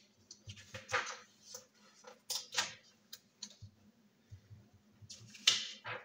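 A sheet of paper being handled and slid across a wooden desk, with several short rustles, the loudest about five and a half seconds in.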